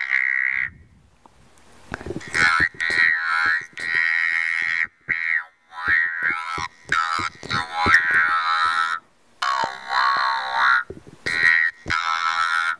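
Talk box recitation: a buzzy tone from a phone, piped through a tube into the mouth, is shaped into spoken syllables by the reciter's mouth. It comes in phrases with short gaps between them, after a pause of about a second and a half near the start.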